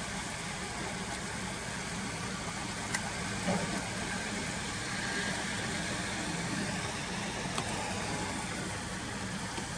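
Car engine idling steadily, heard from inside the cabin, with a couple of faint clicks.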